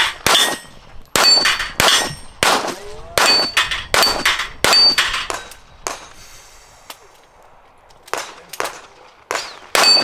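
A rapid string of gunshots, many answered by the ringing ping of steel target plates being hit. About a dozen shots come in quick groups, with a lull about two-thirds through before a final quick group.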